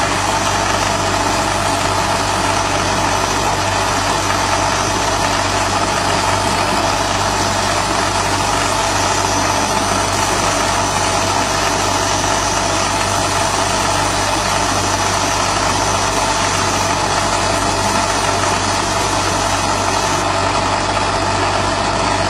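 50 W CO2 RF laser marking machine running while it engraves wooden boxes: a steady mechanical hum with several held tones. A thin high tone stops about twenty seconds in.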